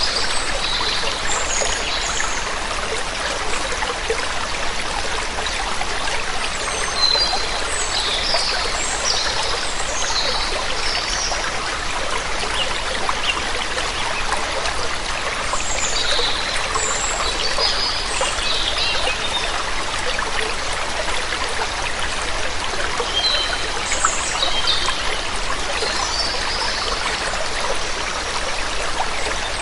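Waterfall water rushing steadily, with birds chirping in short high phrases that come and go several times over it.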